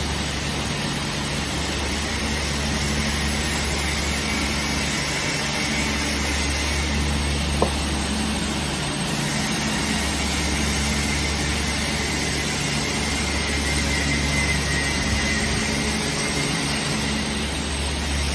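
Automatic soft-close hinge assembly machinery running on a factory floor: a steady low machine hum with noise above it, and one sharp click about seven and a half seconds in.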